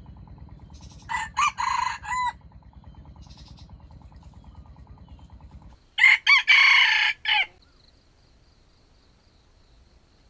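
A junglefowl rooster crowing twice: once about a second in, and again, louder, about six seconds in. A low pulsing rumble underneath cuts off suddenly just before the second crow.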